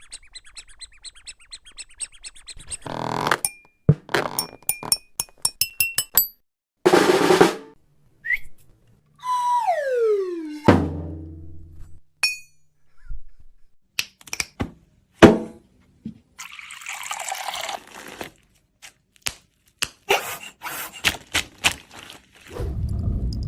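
Cartoon sound effects in quick succession: runs of fast ticks and clicks, short bursts of noise, sharp hits with the loudest about fifteen seconds in, and a whistle-like tone falling in pitch about ten seconds in. A low rumble comes in near the end.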